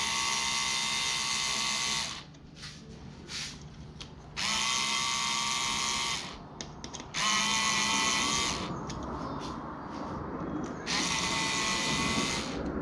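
Power drill-driver running in four spells of one to two seconds with a steady whine, stopping and starting as it works a fastener off the motorcycle, with small clicks in the pauses.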